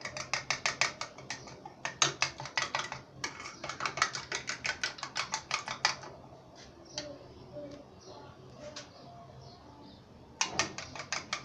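Metal spoon beating a raw egg in a china bowl: rapid clinking strokes against the bowl, about five or six a second. The beating slows to scattered taps for about four seconds and then picks up fast again near the end.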